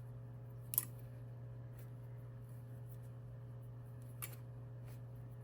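Two short, sharp clicks about three and a half seconds apart, the first the louder, over a steady low hum.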